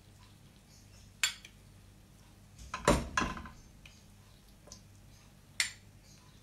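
Serving utensil knocking and clinking against a pan and plates as sautéed cabbage is dished up: a few separate sharp knocks, the loudest a close pair near the middle.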